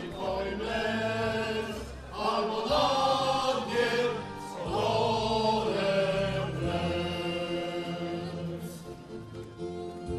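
Voices singing together in a slow, chant-like melody over held low notes, in phrases that swell and ease off every couple of seconds.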